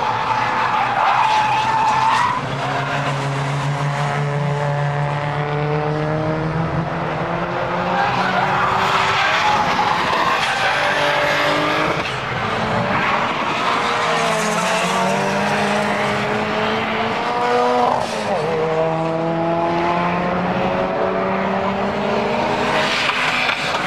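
Drift cars' engines revving hard, pitch rising and falling again and again as they slide through corners, with tyres squealing and skidding. The sound changes abruptly a few times as one car gives way to another.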